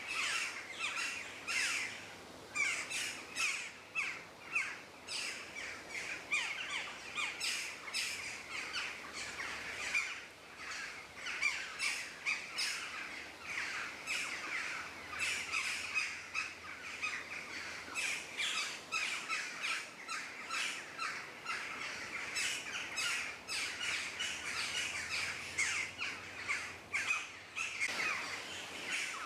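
Forest ambience of many birds calling and chirping at once, a dense, continuous chorus.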